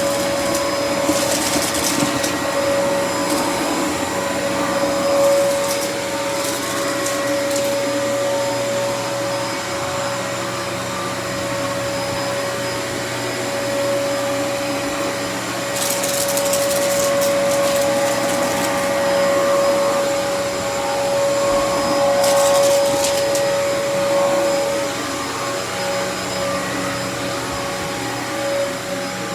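Dyson DC28 upright vacuum cleaner running steadily: a high motor whine over a constant rush of air, with a few brief bursts of higher hiss.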